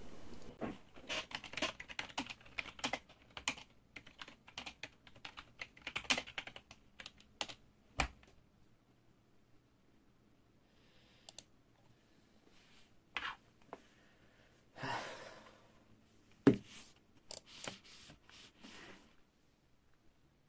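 Typing on a computer keyboard: a quick run of keystrokes for several seconds, then scattered single key presses with a couple of louder knocks.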